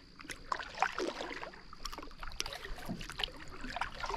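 Canoe paddles stroking through calm water: small irregular splashes, drips and light clicks as the blades dip and pull, over a faint steady high hum.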